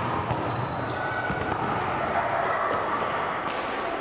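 A group of children's voices chattering and calling out together, with scattered short thuds on the floor.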